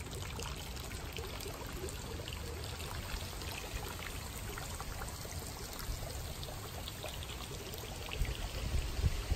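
Water trickling and splashing steadily into a small backyard garden pond. A few low bumps come in near the end.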